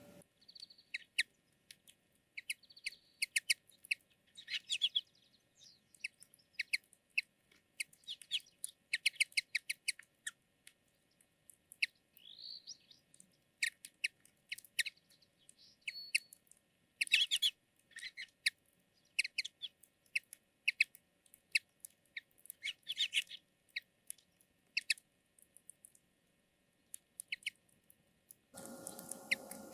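A flock of common linnets calling: many short, quick chirps and twitters in scattered runs, over a faint steady hum. A louder hum and background noise come in near the end.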